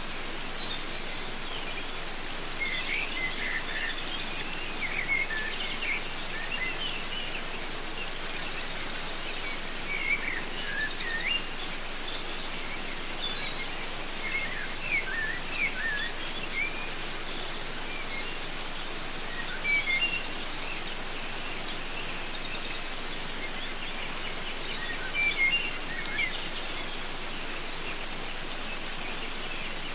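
Waterfall's steady rush of water, with birds singing over it in short chirping phrases that come and go throughout.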